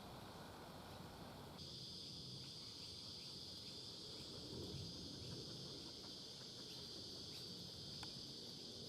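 Faint steady high-pitched insect chorus, starting suddenly about a second and a half in, over a soft low rumble.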